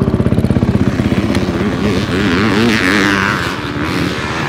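Dirt bike engine running close by with a fast, even firing beat, its pitch wavering up and down several times. A hiss swells and fades about halfway through.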